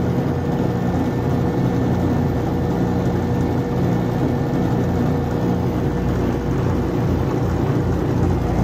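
A 1/2-horsepower, 110-volt electric motor runs steadily, driving a re-wound alternator: a continuous low hum with a thin, steady higher tone. The motor is working under heavy load.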